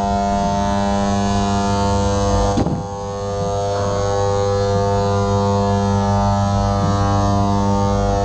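A loud, steady electronic drone of many held low tones stacked together, like a foghorn or ship's engine hum, with a brief break and swoosh about two and a half seconds in.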